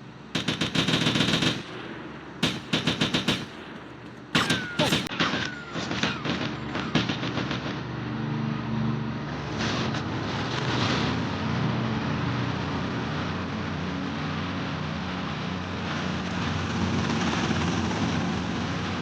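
Machine-gun fire in three rapid bursts, then scattered single shots, giving way after about seven seconds to an engine running steadily.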